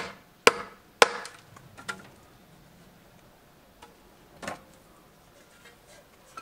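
Steel hammer knocking on a wooden spade handle to drive it into the blade's socket: three sharp knocks about half a second apart in the first second, then a few faint knocks.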